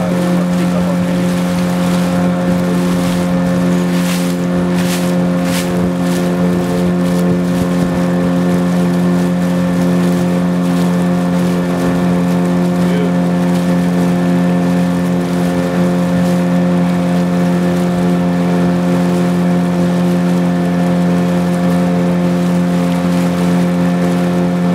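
Boat engine running steadily while the boat is under way, a constant even hum with no change in speed. A few short hissing noises come about four to six seconds in.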